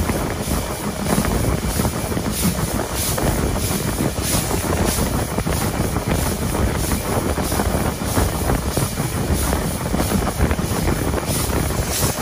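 LSWR T3 class 563 steam locomotive and its train running, heard on board: a steady rumble with a regular pulsing hiss about twice a second, and wind buffeting the microphone.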